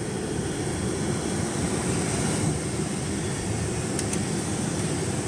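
Cabin noise of a Mercedes-Benz G500 with its twin-turbo V8, crawling over a sandy off-road course: a steady low rumble of engine and tyres, without knocks or rattles from the body.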